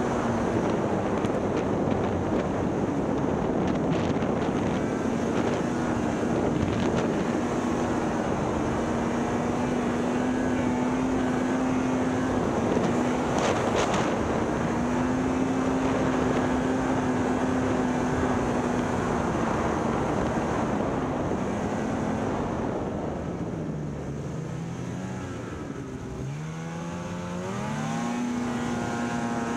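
Snowmobile engine running at steady high revs as the sled travels at speed, with wind and track noise over it. About three quarters of the way through, the revs drop as the sled slows, waver, then climb again near the end.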